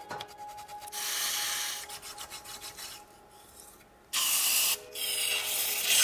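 A hand wire brush scrubbing a rusty brake caliper in quick scraping strokes. About four seconds in, two long hisses of aerosol cleaner are sprayed onto the caliper.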